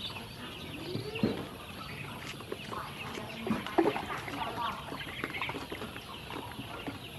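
Ducklings peeping with many short high calls while paddling in a tub of water, with a couple of louder thumps about one and four seconds in.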